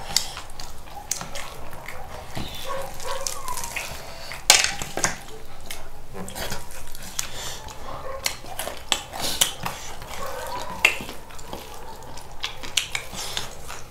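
Eating sounds: cutlery and dishes clinking and clattering irregularly, with the small wet clicks and smacks of chewing between. The sharpest clatters come about four and a half and eleven seconds in.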